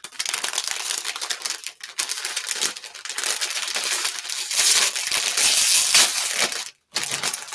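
Crinkly plastic snack packaging being handled and pulled open, a dense crackling that is loudest about two-thirds of the way through and breaks off briefly near the end.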